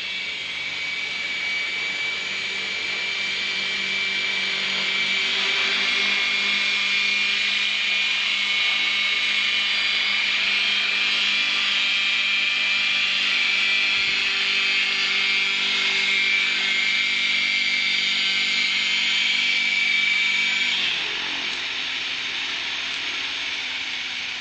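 Radio-controlled model helicopter flying, its motor and rotor making a steady, high-pitched whine. About 21 seconds in the whine drops away suddenly, leaving a lower steady hum.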